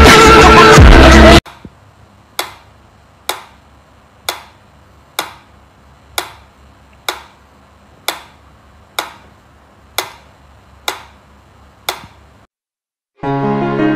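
Mechanical pendulum metronome ticking steadily, about one tick a second, eleven ticks in all. Loud music cuts off about a second and a half in, and music starts again near the end.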